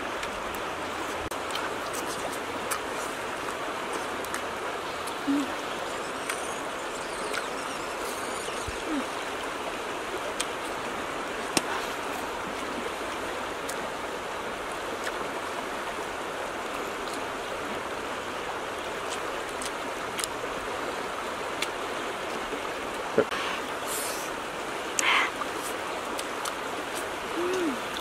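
A river running steadily over a rocky bed: a constant rushing of water. A few brief murmurs of a voice and scattered small clicks sound over it.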